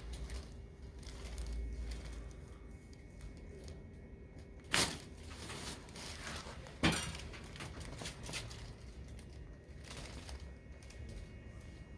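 Two sharp clacks from a chiropractic adjustment, about two seconds apart, over a faint steady hum.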